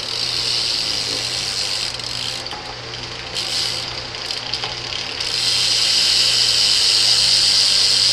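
BMX bike's rear hub ratcheting as the wheel spins freely, a fast steady clicking buzz that gets louder about five seconds in.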